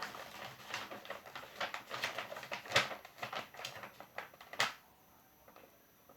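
Plastic packaging crinkling and rustling in quick irregular crackles, handled for about four and a half seconds, then stopping.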